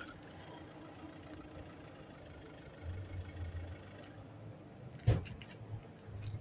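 A low engine rumble of a passing vehicle about three seconds in, then a single sharp knock about five seconds in, the loudest sound. Faint small clicks of a cat crunching dry kibble come between.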